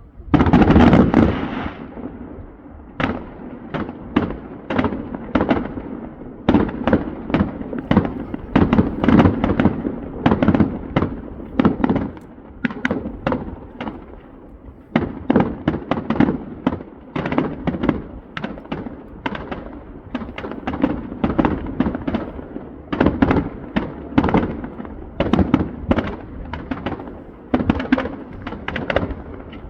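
Fireworks display: aerial shells bursting in a rapid, irregular run of loud bangs, a few a second, with a big burst at the very start and short lulls about 2 and 14 seconds in.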